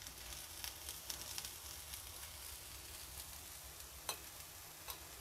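Food frying in a pan on a gas stove: a faint, steady sizzle with small scrapes and taps of a utensil stirring, and a sharper tap about four seconds in.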